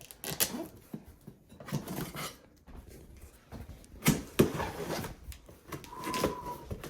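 A cardboard parts box being opened and its packing handled: irregular rustling, scraping and a few sharp knocks, with a brief squeak near the end.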